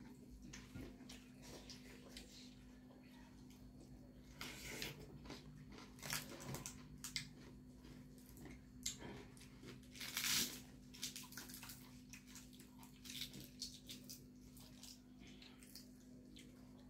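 People eating fried chicken and rice by hand: chewing, biting and lip smacking, with louder moments about four and a half, six and ten seconds in, over a steady low hum.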